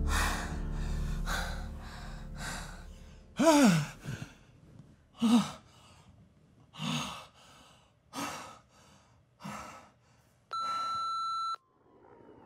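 Breathy sighs and moans during lovemaking, coming about every second and a half, some with a short voiced moan that falls in pitch. About ten and a half seconds in, a phone's electronic ring tone sounds once for about a second.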